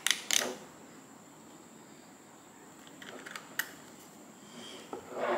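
A few small clicks and taps of an Allen key and metal parts being handled against a rifle stock while a sling swivel stud is done up, with a couple of sharper clicks at the start and a few fainter ones about three seconds in.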